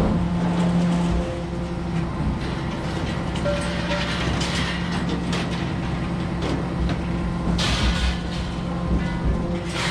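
A vehicle engine running with a steady low hum, with loose rattles and a louder clatter a little before the end.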